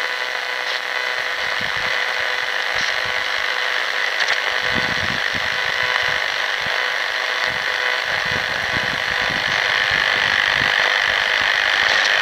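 Static hiss from a Sangean ATS 505 shortwave radio's speaker as it is tuned up through frequencies with no station on them, with faint steady whistles in the noise. A few faint clicks come from the tuning buttons.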